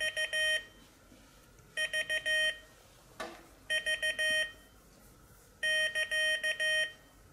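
Morserino-32 Morse trainer's speaker sending a steady Morse tone at about 15 words per minute: three V's (di-di-di-dah), then the KA prosign (dah-di-dah-di-dah). This is the start signal that opens a copying lesson.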